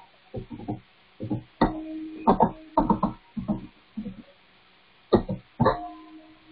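Indistinct human voice in short uneven bursts with pauses, a few sounds held briefly, with no clear words.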